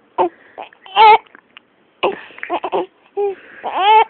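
Baby hiccupping several times in short, sharp catches. Between them come brief fussy cries: a longer whine about a second in and a rising cry near the end.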